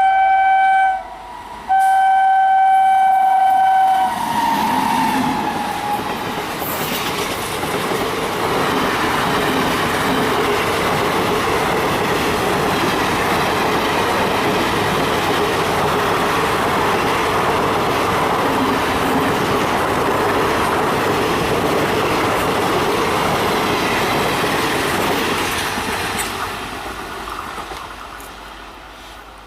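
WAP-5 locomotive's horn sounding two loud blasts, the first cut off about a second in and the second held until about four seconds in. Then the superfast express train passes at speed with a steady, loud rushing noise that fades away over the last few seconds.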